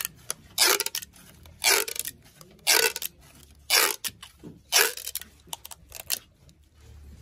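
Clear packing tape being pulled off its roll and wound around a bundle of cardboard firework tubes: six short, noisy pulls, about one a second, stopping near the end.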